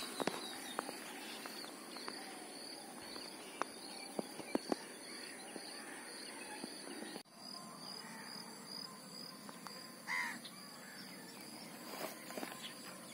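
Quiet outdoor ambience: an insect chirping in steady high pulses, a few soft clicks, and a crow cawing once about ten seconds in.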